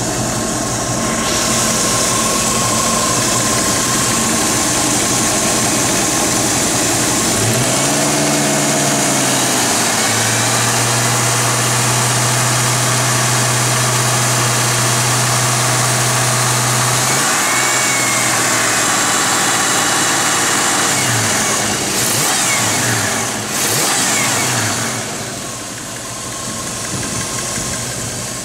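1966 Ford Mustang's engine idling, then revved by hand at the carburetor. About a third of the way in it is held at a higher speed for several seconds, drops back, is blipped a few times, and settles to idle.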